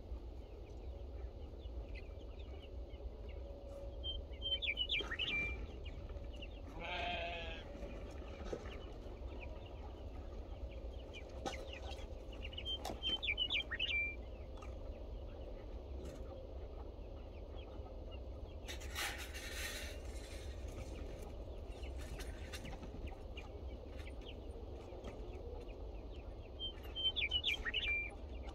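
A goat bleats once, about seven seconds in. A bird calls a short, quick run of high notes three times, over a steady low rumble.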